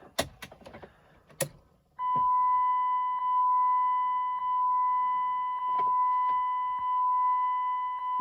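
A few sharp clicks, then about two seconds in a steady, continuous high electronic beep tone starts and holds without stopping.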